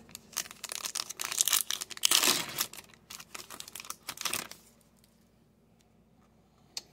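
Crimped plastic wrapper of a Topps Chrome baseball card pack being torn open and crinkled in the hands, a dense crackle that stops about four and a half seconds in. A single short click near the end.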